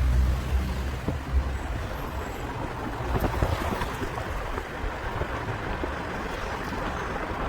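City street traffic: a vehicle's low engine rumble going by in the first second or so, then a steady hiss of passing traffic.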